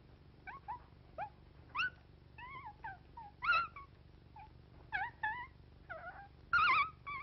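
Cartoon dog voice: a string of short, high whimpers and yelps, each sliding up or down in pitch, with two louder yelps, one midway and one near the end.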